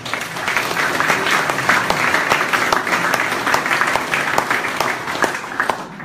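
Audience applause, many people clapping together. It starts suddenly, holds steady, and fades out just before the end.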